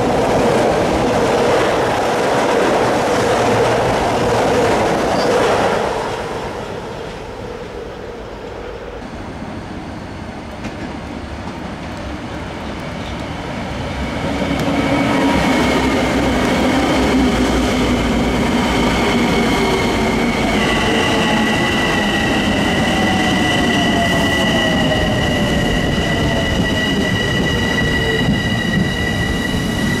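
Long Island Rail Road electric commuter trains. One passes at speed for about the first six seconds, then it goes quieter for several seconds. A train then comes in with a steady high electric whine, and a lower whine falls in pitch over the last ten seconds as it slows.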